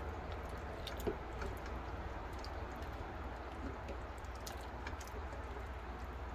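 A wooden spoon stirring a thin, brothy stew of corn, potatoes and carrots in a Ninja Foodi pressure cooker's pot. Soft liquid sloshing comes with scattered light taps of the spoon against the pot, one sharper tap about a second in, over a steady low hum.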